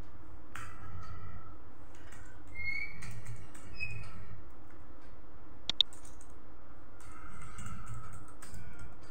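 Laptop keyboard typing and clicking, with a few short high chirps early on and one sharp, louder click about halfway through.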